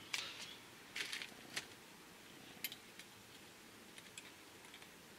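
Light metallic clicks and ticks of a piston ring being spiralled by hand into the grooves of a piston. A few sharper clicks come in the first three seconds, then fainter ticks.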